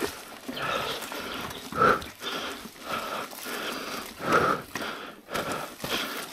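A mountain biker breathing hard in repeated heavy gasps while riding, over a steady rush of tyre and trail noise.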